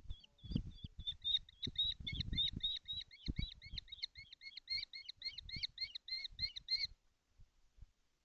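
Kestrel giving a rapid series of sharp, repeated calls, about four to five a second, stopping about seven seconds in. Dull knocks and rustling sound underneath the calls.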